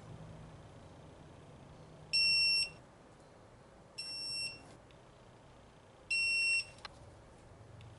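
Three electronic beeps, each about half a second long and about two seconds apart, all on one steady high tone. A short click follows just after the third beep.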